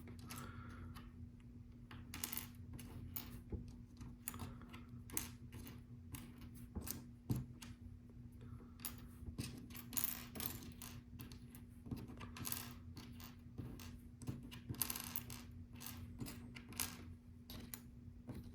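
Small plastic LEGO pieces clicking and clattering irregularly as a hand sifts through loose parts, searching for a missing piece. A faint steady hum runs underneath.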